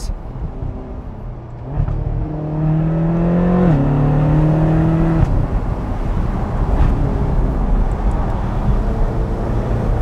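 Ferrari California 30's 4.3-litre naturally aspirated V8 pulling under throttle with the roof down. Its note rises for about two seconds and dips at a dual-clutch upshift. A second or so later the driver eases off, and it settles to a lower cruising drone under road and wind noise.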